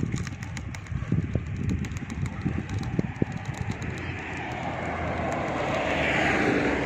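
Rumble and rattle of a bicycle rolling along a paved path, with scattered clicks and knocks. A broad rushing noise swells over the second half and peaks near the end.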